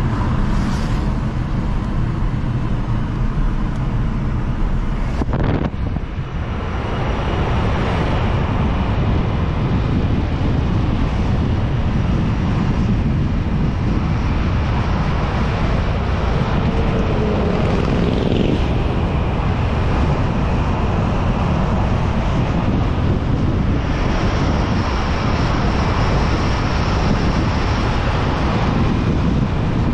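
Steady tyre and wind noise of a car driving at highway speed, heard from inside the cabin at first, then, after an abrupt change about five seconds in, from outside the car with wind blowing on the microphone.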